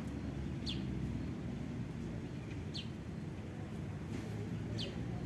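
A bird calling three short chirps, each falling quickly in pitch, about two seconds apart, over a steady low rumble.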